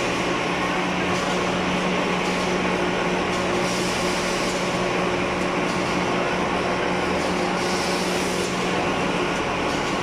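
Automatic facial tissue production line machinery running continuously: a steady mechanical din with a constant low hum.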